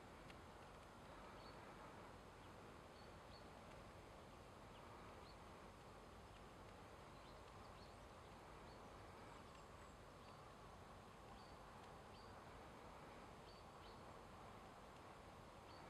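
Near silence: faint steady outdoor hiss, with brief high chirps from small birds scattered through it.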